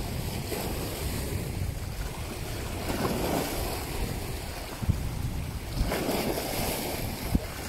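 Small waves washing and splashing over shallow shore rocks, with wind rumbling on the microphone. The wash swells twice, about three and six seconds in.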